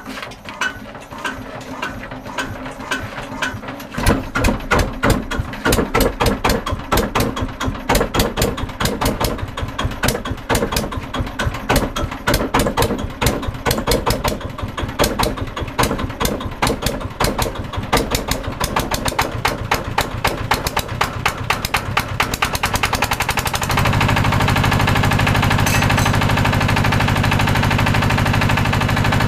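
Changfa S195M single-cylinder diesel engine running just after a hand-crank cold start at −17 °C. It fires in loud separate knocks that quicken as it warms, then about 24 seconds in it smooths into a steady, even run at speed.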